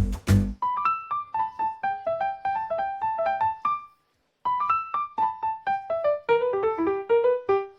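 Background music: a keyboard melody of quick single notes with a brief break about halfway through. A fuller arrangement with bass drops away about half a second in.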